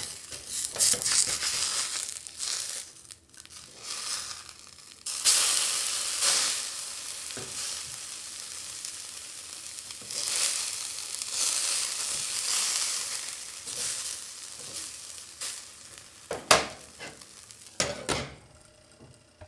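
Burger patties sizzling with a loud hiss. The hiss swells and fades several times, and two short sharp bursts of sizzle come near the end.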